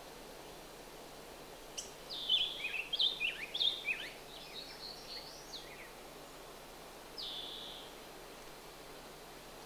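A small songbird sings a quick phrase of short, falling whistled notes about two seconds in, lasting about four seconds, then gives one more short note later on, over a steady background hiss.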